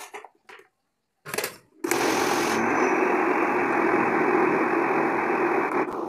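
Electric countertop blender motor running steadily, blending a thick batter of raw cassava, milk, corn and eggs. It starts about two seconds in after a brief clatter and cuts off right at the end.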